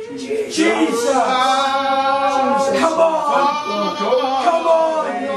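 Unaccompanied worship singing by a group of voices, a man's voice most prominent, with long held notes.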